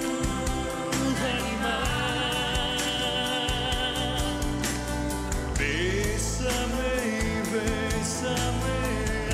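Live rock band playing a song with a steady drum beat and electric guitar, and a man singing over it.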